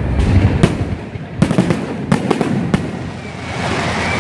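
Aerial firework shells bursting at a fireworks display: about six sharp bangs over the first three seconds, then a spreading hiss near the end as a large glittering burst opens.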